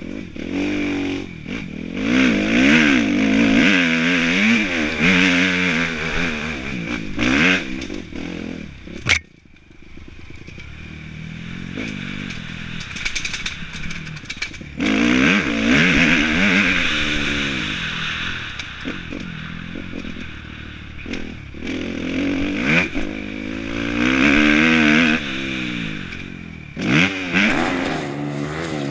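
Kawasaki motocross bike engine revving up and backing off again and again on a dirt track, with rushing wind on a helmet-mounted microphone. A sharp knock about nine seconds in is followed by a brief lull before the engine picks up again.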